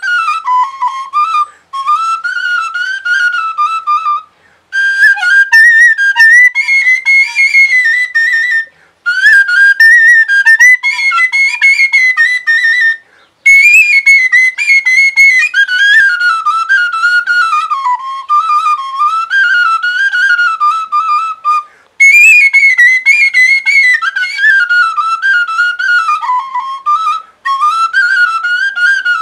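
Solo Carpathian shepherd's flute, a dark wooden end-blown flute, playing a lively high folk melody with quick ornaments. The tune comes in phrases of a few seconds each, broken by short breaths.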